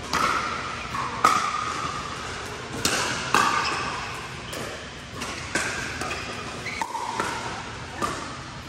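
A series of sharp knocks or strikes at irregular spacing, roughly one a second, each followed by a short fading ringing tone.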